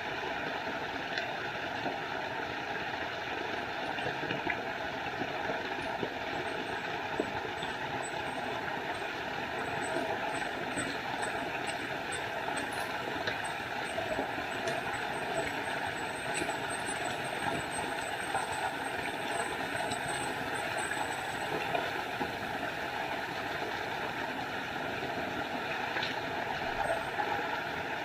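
Small forest waterfall: a steady rush of falling, splashing water.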